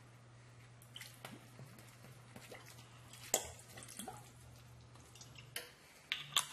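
Balsamic vinegar poured from a glass bottle, dripping and spattering into a pan of sautéing vegetables, with scattered small clicks and taps. A faint steady hum underneath stops about five and a half seconds in.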